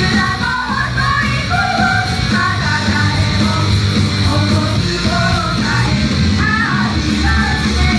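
Idol group singing a rock song live, sung melody over loud, steady rock music.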